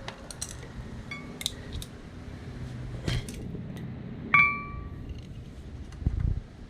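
Light metal taps and clinks of a hammer and screwdriver working on a front axle universal joint, with one sharp ringing metal-on-metal strike about four seconds in and a couple of dull thumps near the end. The work is driving the U-joint's bearing caps and clips out of the axle shaft.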